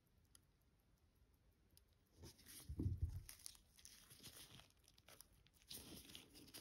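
Faint handling noises of watchmaker's tools fitting a minute hand onto a watch movement: light scrapes and clicks, with a dull bump about three seconds in and another small cluster of scrapes near the end.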